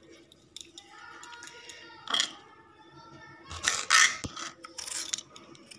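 Kitchen knife slicing through a cucumber and striking the cutting board: one crisp cut about two seconds in, then a quick run of several cuts around four to five seconds in.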